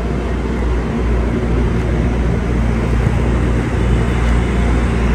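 A ferry's engine running with a steady low drone, under a continuous rush of wind and water noise.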